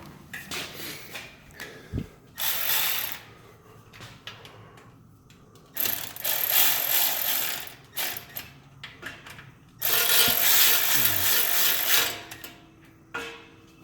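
A ratchet wrench working, in three bursts of about one to two seconds each.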